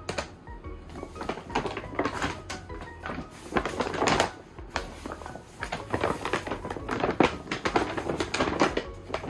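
Kraft paper shopping bag rustling and crinkling in irregular crackles as a cat shifts around inside it.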